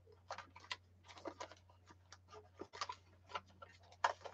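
Small craft supplies in a small box clicking and rattling softly as hands sort through them, in irregular light clicks, several a second.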